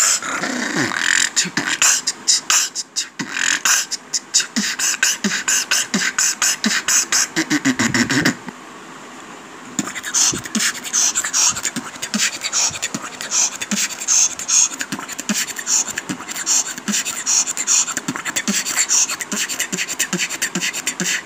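Robotic-style beatboxing by one person, meant to sound like an electric current: fast mouth clicks and snares mixed with sharp hissing bursts, and a few low sliding vocal tones. The beat breaks off for about a second and a half, about eight seconds in.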